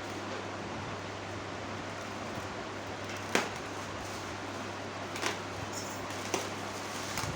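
Steady hiss with a low hum, broken by three short sharp clicks, the loudest about three seconds in.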